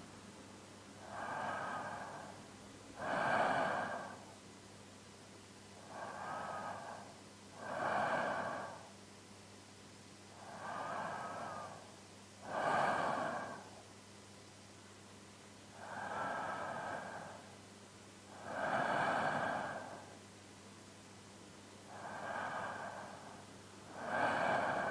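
A man's slow, even sleep breathing, close to a binaural microphone: a softer inhale and a stronger exhale, repeating about every five seconds, five full breath cycles in all.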